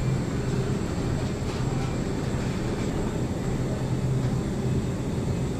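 Steady droning hum with a constant low pitch under an even rushing noise: supermarket background from refrigerated display cases and ventilation.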